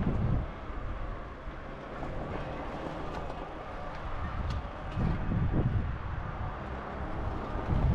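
Electric mountain bike climbing a steep, rutted dry dirt track: a steady low rumble of the tyres and suspension over the ground, with heavier jolts about five seconds in and again near the end, and a few light ticks in between.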